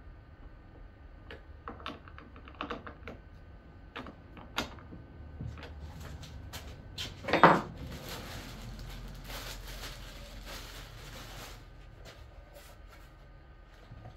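Light clicks and knocks of a cordless chainsaw's plastic and metal parts being handled on a wooden workbench, with one louder knock about seven seconds in. Clear plastic packaging then crinkles for a few seconds.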